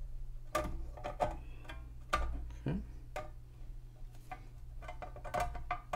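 Pliers gripping and bending the metal flanges of a chassis shield cover straight: a string of irregular metallic clicks and taps, some with a short ring.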